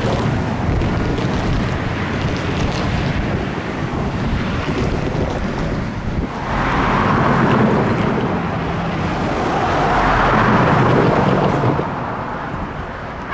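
CAF light rail train rolling past, a continuous rumble and hiss of steel wheels on rail that swells twice, about halfway through and again near the end, with wind buffeting the microphone.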